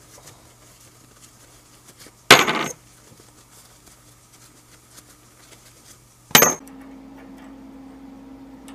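Steel washers clinking twice, each a short rattle with a bright ring, as they are set down on the workbench. After the second clink a steady low hum comes in.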